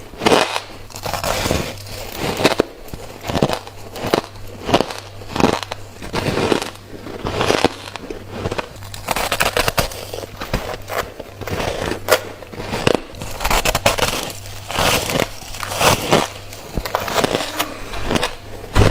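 Close-up crunching bites of refrozen freezer frost, crisp and squeaky, one after another about once or twice a second.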